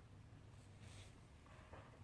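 Near silence: faint room tone with a steady low hum, a brief soft rustle about a second in and a few faint clicks near the end.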